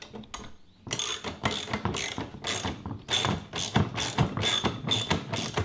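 Ratchet socket wrench clicking in quick repeated back-strokes, about three a second, starting about a second in, as a 7/16-inch socket tightens the nuts on the spreader's frame bolts.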